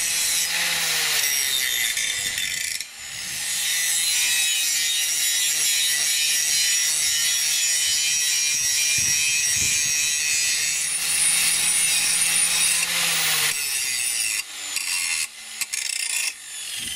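Angle grinder with a thin cut-off disc cutting through a square steel tube: a loud, steady grinding hiss over the motor's whine, with a brief drop about three seconds in. Near the end the steady cut stops and the grinder touches the steel in short, broken bursts.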